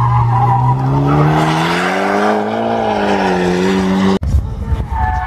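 Mitsubishi Lancer Evolution X's turbocharged four-cylinder engine pulling hard on track, its pitch climbing steadily and then easing off slightly. About four seconds in the sound cuts off abruptly and another car is heard running on the track with a tyre squeal.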